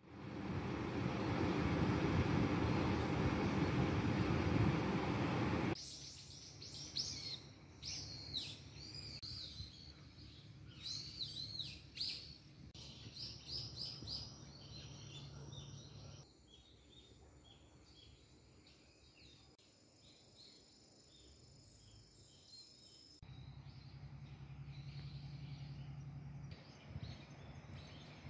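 A loud, even rushing noise for the first six seconds or so, then songbirds calling with quick, repeated arched chirps. The birds fade to fainter, scattered calls over a thin, steady high tone.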